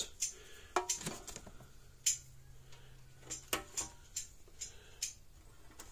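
Hol-Dem Super Power 980 solid-state electric fence charger pulsing under test, giving sharp ticks roughly every second and a half with fainter clicks between them.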